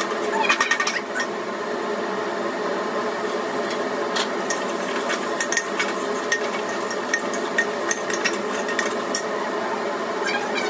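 A metal spoon stirring the ghee-and-cumin tadka in a steel pressure cooker, scraping and tapping against the pot in scattered clicks, the loudest cluster about half a second in. A steady hum runs underneath.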